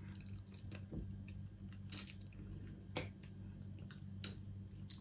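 Close-up wet eating sounds of someone eating crab: soft chewing, squishing and lip smacks, with scattered short clicks and smacks about a second apart.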